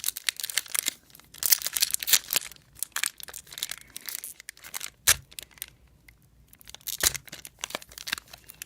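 Foil wrapper of a basketball trading-card pack being torn open and crinkled in the hands, in several bursts of crackling, with a couple of sharp clicks about five and seven seconds in.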